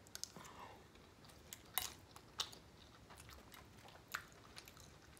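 Soft, close-miked chewing of a mouthful of pasta salad, heard as a few sparse, sharp mouth clicks over a quiet background.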